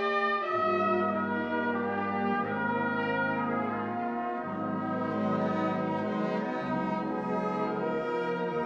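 Mixed youth ensemble of strings, woodwinds and brass playing a Christmas carol arrangement: slow, sustained chords over a bass line that moves to a new note about every two seconds.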